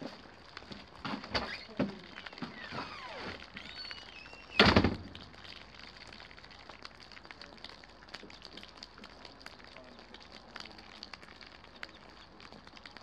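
Windy rainstorm: scattered taps and knocks in the first few seconds, one loud thump about four and a half seconds in, then a light, steady patter of rain.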